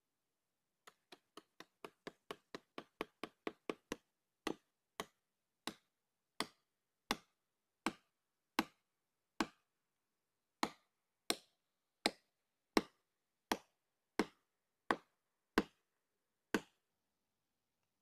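A plastic felling wedge being driven into the back cut of a standing tree by blows from a striking tool. About thirty sharp knocks: quick, lighter taps that speed up for the first few seconds, then heavier, louder blows about every 0.7 s that stop about two seconds before the end.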